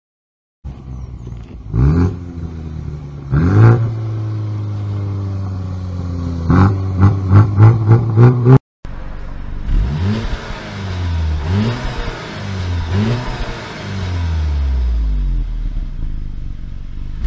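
BMW 2 Series Gran Coupe's turbocharged four-cylinder exhaust, revved twice and settling to a steady idle, then about six quick throttle blips. After a sudden cut, an Audi A3 sedan's exhaust revs up again and again in short rising sweeps, ending in a long falling note.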